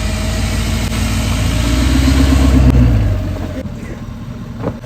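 A motor vehicle's engine running and revving up, loudest about two to three seconds in, then easing off.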